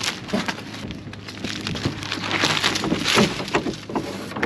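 Used blue painter's tape crinkling and crackling as it is gathered up in the hands and pushed into a trash bin, irregular and continuous, with a sharp knock near the end.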